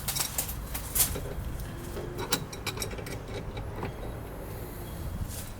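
Oily metal tool parts clinking and clicking against each other as they are handled, sharpest in the first second and then a few lighter ticks, over a steady low rumble.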